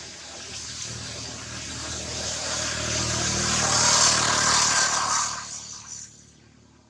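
A motor vehicle passing by: its engine hum and road noise grow steadily louder over about four seconds, peak, then fade away about six seconds in.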